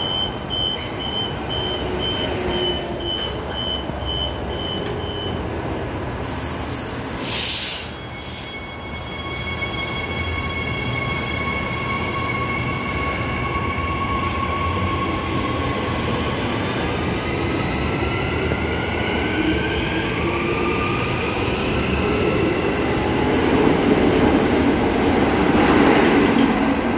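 Perth suburban electric multiple-unit train leaving a station platform: repeated beeps for the first few seconds, a short sharp hiss about seven seconds in, then several motor whines rising in pitch as it picks up speed. Near the end a second, non-service three-car train runs through, and its rumble is the loudest part.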